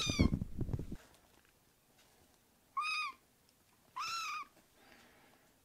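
Young kittens mewing: three short, high-pitched mews, one right at the start, one about three seconds in and one about a second after that. Clothing rustles loudly during the first second.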